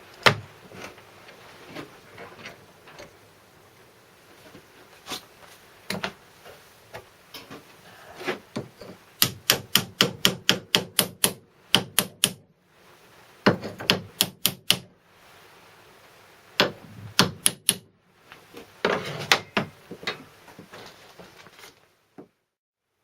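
Runs of sharp metallic taps, about four or five a second, with single knocks between them, as a crank pin is worked onto a crankshaft. The taps come in four bursts, between short pauses.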